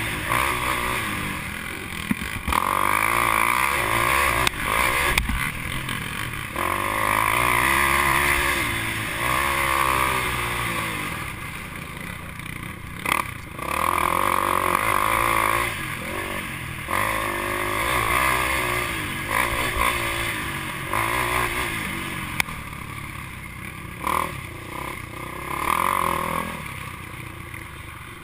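Racing ATV engine revving up and easing off again and again as the quad is ridden hard over rough trail, heard from a helmet-mounted camera.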